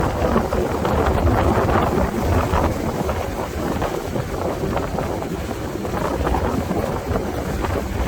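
Strong wind buffeting the microphone in uneven gusts over the steady rush of breaking ocean surf.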